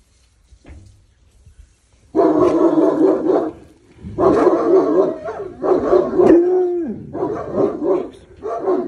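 A dog giving a run of about five long, loud, drawn-out barking calls, starting about two seconds in; one trails off with a falling pitch.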